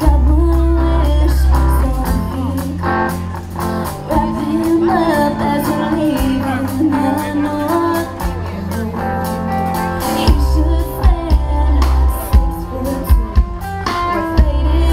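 Live band music: a woman singing a Christmas song over electric guitar, bass and drums, with the drum hits coming in sharper about ten seconds in.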